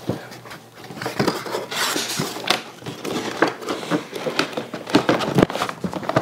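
A cardboard toy box with a clear plastic window being handled and turned on a wooden table: scattered knocks, taps and rustling, with a longer rustle about two seconds in.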